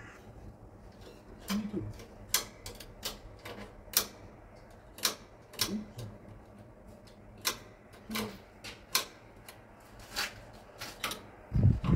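Metal hand tools clicking and tapping against the metal of the machine: about fifteen sharp, irregularly spaced knocks, with a heavier, duller thump near the end.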